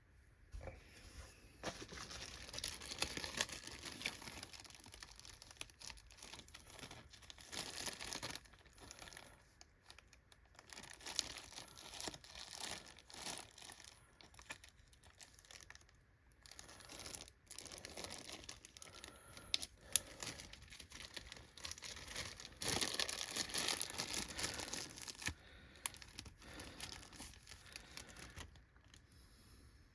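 Crinkling and rustling of crinkly material being handled, coming and going in stretches of a few seconds, with scattered small clicks. The longest and loudest stretch comes a little past the two-thirds mark.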